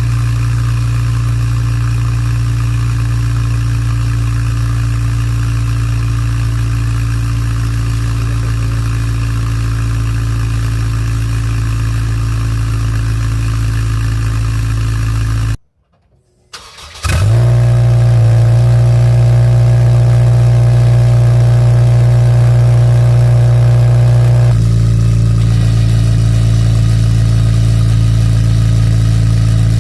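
Honda Civic Type R's K20A four-cylinder idling steadily through a 5Zigen Zero Fighter competition muffler. About halfway through, the sound cuts out and the engine is started again: a quick rise as it catches, then a louder steady idle. A few seconds later the idle note steps up slightly.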